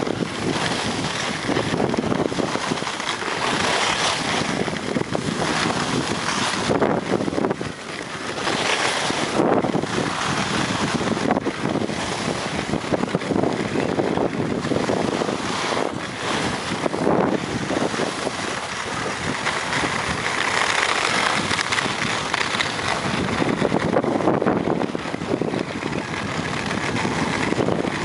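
Wind rushing over the microphone together with the hiss and scrape of skis running on groomed snow during a fast downhill run, swelling and easing with the turns.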